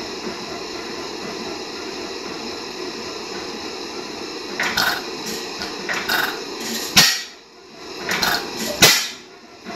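1910 Allan Brothers 3 hp lamp oil engine running with a steady mechanical clatter. About halfway through, a run of sharp knocks begins, a few to a second, with two louder bangs near the end.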